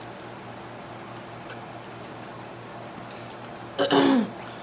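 A low steady hum with a few faint clicks while a woman chews a piece of fried chicken; about four seconds in, a short loud sound from her mouth and voice, a click and then a brief pitch falling away.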